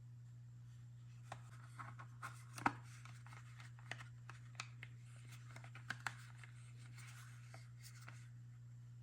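Faint, scattered light clicks, taps and rustles of small plastic toy kitchen pieces and packaging being handled, one sharper click a little under three seconds in, over a steady low electrical hum.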